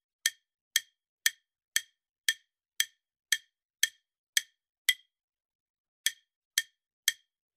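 Quiz countdown timer ticking sound effect: short, sharp ticks about two a second, with one beat skipped about five seconds in.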